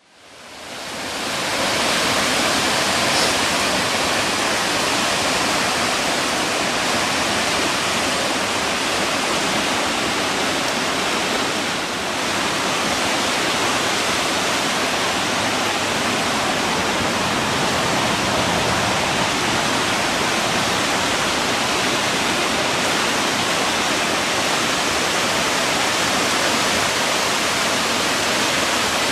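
Steady loud rush of fast-flowing floodwater pouring through a standing wave, fading in over the first couple of seconds.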